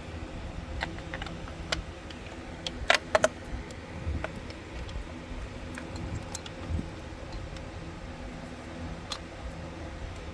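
Scattered metallic clicks and clinks of hand tools and engine parts being handled, with a quick cluster of three louder clacks about three seconds in, over a steady low hum.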